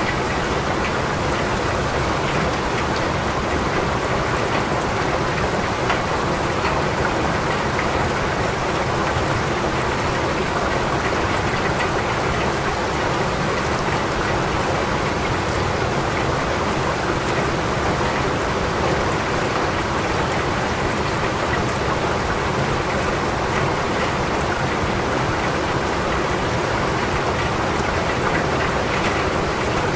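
Rain falling steadily, an even, unbroken wash of drops.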